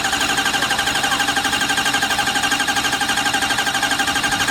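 Ford 6.0 Powerstroke V8 diesel being cranked by its starter motor with the ignition off, so it turns over without firing. It gives a steady starter whine with fast, even compression pulses, about ten a second, as the engine primes oil to a newly installed turbo.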